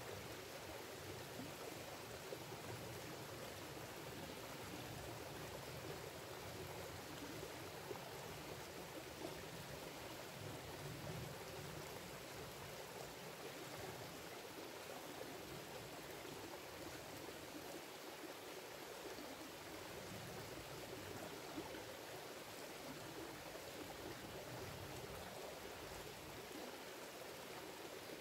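Shallow, rocky creek running over stones, a faint steady flow of water.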